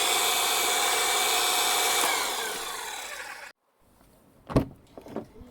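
Xiaomi Jimmy JW31 cordless pressure washer spraying on its shower nozzle setting: a steady hiss of water with the pump motor's whine through it. About two seconds in the pump winds down and the spray fades, then stops abruptly; a single knock follows.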